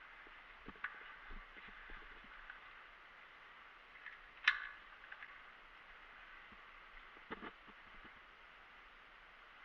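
Faint steady hiss with a few scattered short clicks and knocks; one sharper click comes about four and a half seconds in.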